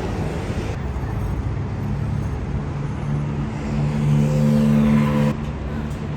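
A vehicle running with a steady low rumble; a humming motor tone swells from about three seconds in and cuts off abruptly a little after five seconds.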